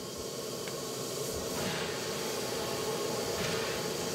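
Steady hiss of steam from the 1865 A10 class steam locomotive No. 6 standing in steam, with two brief swells.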